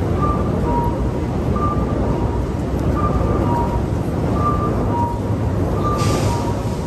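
A two-note electronic chime, a higher note then a lower one, repeating about every one and a half seconds over a steady low rumble of background noise; a short hiss about six seconds in.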